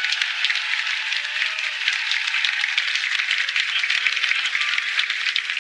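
Audience applauding after the pronouncement and kiss, with a few voices calling out early on the applause; soft music comes in under the clapping about four seconds in.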